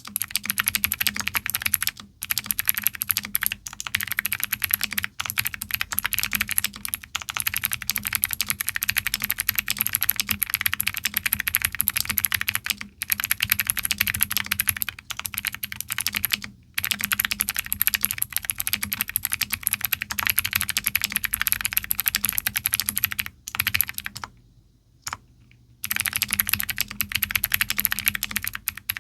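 Mechanical keyboard with Outemu CrossWhite clicky switches being typed on fast, a dense stream of sharp clicks. There are a few short pauses and one of about two seconds shortly before the end.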